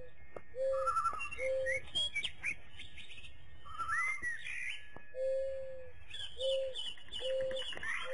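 Several birds chirping and trilling, with a low, clear whistled note repeated about once a second in two runs.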